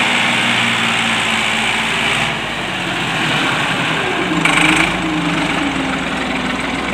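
Tractor diesel engine running under load as it pulls a loaded trolley past at close range. The engine note wavers and shifts a little past the middle.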